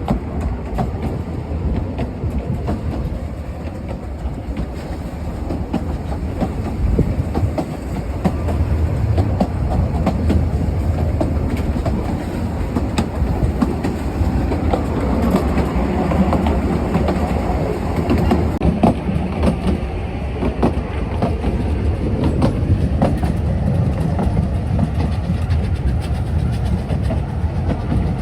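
Narrow-gauge train running along the track: a steady rumble with the irregular clickety-clack of wheels over the rail joints, growing a little louder after the first several seconds.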